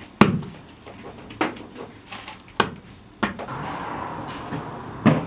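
Bread dough being slapped and pressed by hand on a marble slab: four sharp thumps over about three seconds. After that a steady rushing noise takes over, with one more thump near the end.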